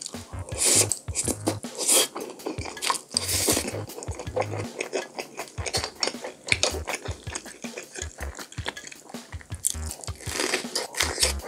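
Close-miked eating sounds: wet chewing and mouth smacks with a fork clicking against teeth and plate. Near the end comes a crisp crunching bite into a raw yellow sweet pepper.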